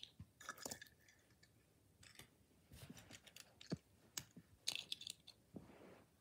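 Faint handling noise: a dozen or so soft, scattered clicks and light rustles at uneven intervals, as toy cars and the recording device are handled over a rug.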